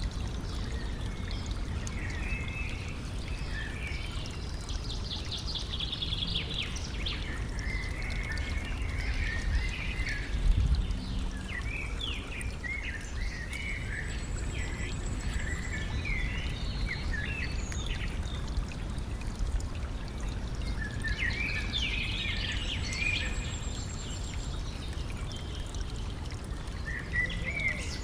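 A stream trickling and flowing steadily, with several songbirds chirping and trilling over it, busiest at about five seconds and again near twenty-two seconds. A brief low thump stands out about ten seconds in.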